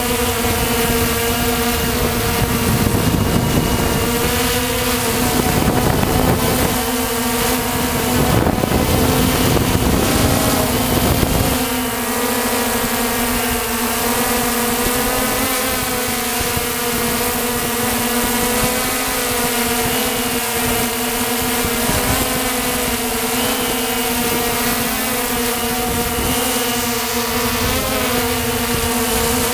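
Walkera Tali H500 hexacopter's electric motors and propellers humming steadily, recorded on board the aircraft. From about 2 to 11 seconds in, wind buffets the microphone over the hum.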